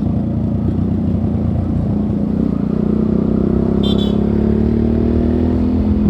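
Suzuki Gixxer motorcycle's single-cylinder engine running under way, its note rising gently over the last few seconds as it gathers speed. A brief high chirp sounds about four seconds in.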